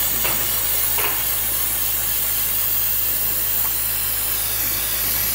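Aerosol can of brake cleaner spraying in one long, steady hiss onto a brake caliper.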